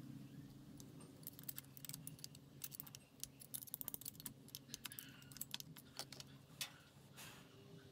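A quick, irregular run of light metallic clicks and clinks, starting about a second in and thinning out near the end: a screwdriver and small parts being worked by hand against the opened crankcase of a Honda XL250 engine.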